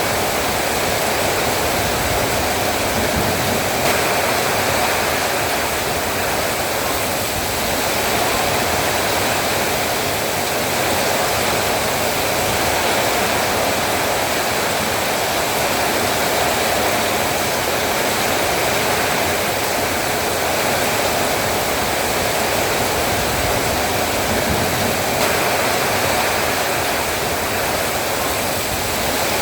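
Heavy rain falling steadily, an even downpour hiss with no let-up.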